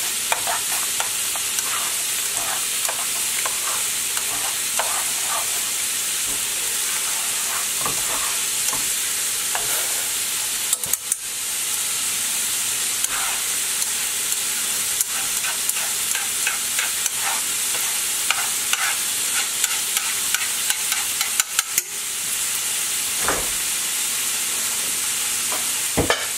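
Beaten eggs sizzling in hot oil in a frying pan while being stirred and scrambled with wooden chopsticks, with many light clicks of the chopsticks against the pan. The sizzle briefly dips twice.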